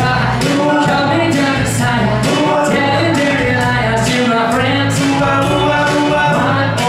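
Two male singers singing live into microphones over music with a steady beat.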